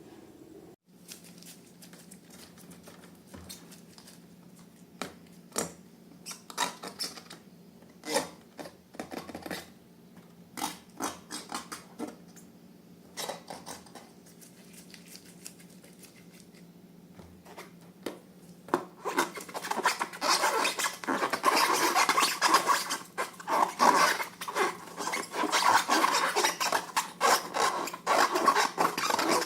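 Hands working slime: sticky, crackling squishes and rubbing, scattered at first, then dense and louder for the last third.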